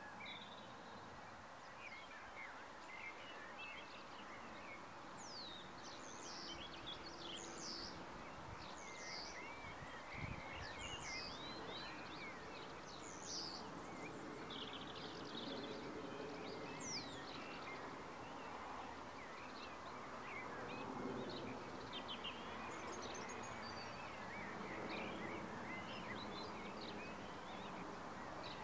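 Faint outdoor ambience: many small birds chirping and calling over a steady background hiss, with a brief low thump about ten seconds in.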